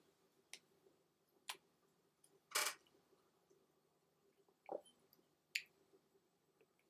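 Quiet room tone with a faint steady hum and a few scattered small clicks, the loudest about two and a half seconds in and another near five and a half seconds.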